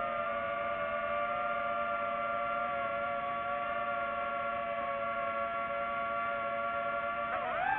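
DJI FPV drone's propellers whining at a steady pitch in several tones, the pitch sliding up near the end.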